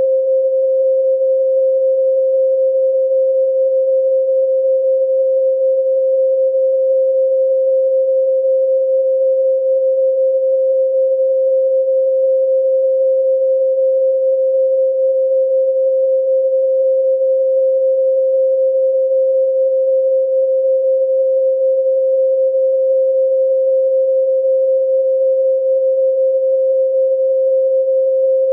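A pure 528 Hz sine tone, held steady at one pitch and level, with no overtones.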